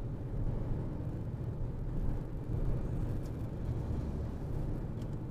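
Steady low rumble of a Peugeot car driving on a highway, engine and tyre noise heard inside the cabin.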